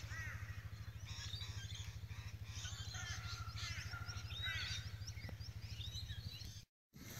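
Birds chirping and calling with many short, quick chirps and whistled notes, over a steady low pulsing hum.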